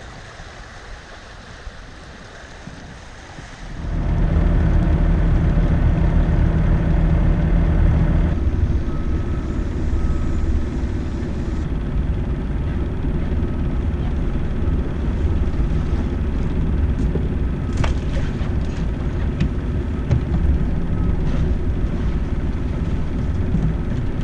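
An engine running steadily at a low, even pitch, with wind buffeting the microphone. It cuts in loudly about four seconds in, after a quieter stretch.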